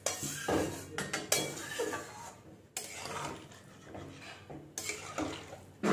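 Metal ladle stirring a thin, watery curry in a metal kadai, scraping and knocking against the pan with several sharp clinks.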